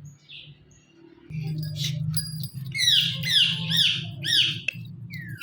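Indian ringneck parakeet giving a run of about five sharp, repeated down-sweeping screeching calls in quick succession, with a single gliding call near the end, over a low steady hum.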